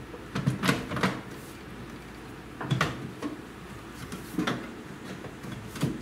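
Knocks and clicks of a GE over-the-range microwave's control panel being pressed and seated back into its housing. There is a quick cluster of knocks in the first second, then single knocks spaced out through the rest.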